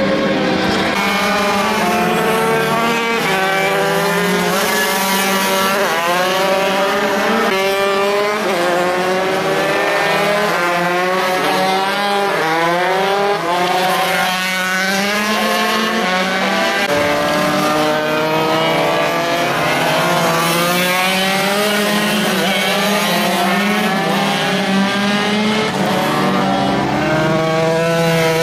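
Several MiniGP minimotos racing on track. Their engines overlap, each note climbing in pitch and dropping back as the riders shift gear, over and over.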